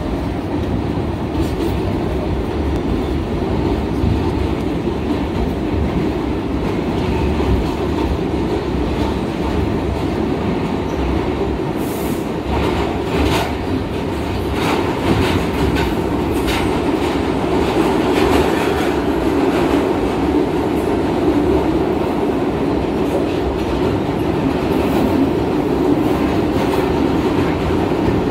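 New York City Subway B train running, heard from inside the car as it pulls out of a station into the tunnel: a steady rumble that grows slightly louder, with a run of sharp clicks and clatter from the wheels on the track from about halfway in.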